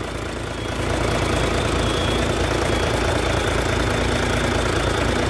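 Isuzu 6HL1 inline six-cylinder diesel with an inline injection pump, idling steadily; it gets a little louder about a second in.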